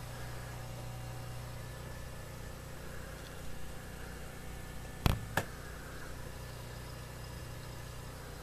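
Steady low electrical hum, with two sharp knocks about five seconds in, a third of a second apart.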